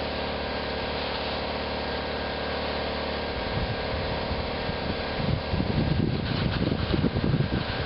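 A small engine running steadily. About five seconds in, irregular low rustling and bumps join it for a couple of seconds.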